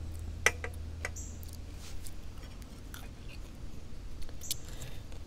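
Eating sounds: chewing and a few short clicks of cutlery against a plate, the first about half a second in the loudest and briefly ringing, over a low steady hum.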